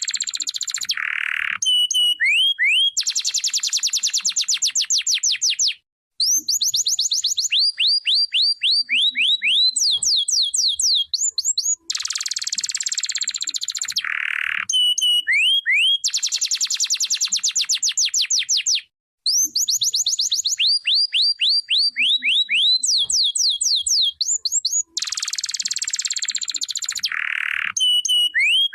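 Canary singing a long continuous song of fast trills, dense rolling passages and runs of rising whistled notes. The same sequence of phrases comes round again about every thirteen seconds.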